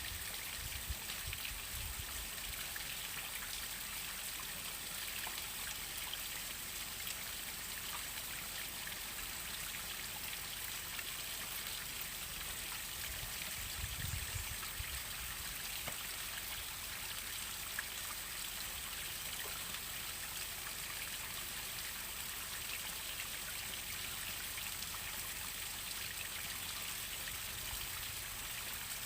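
Waterfall water splashing and running in a steady, unbroken hiss, with two brief low rumbles, about a second in and around fourteen seconds.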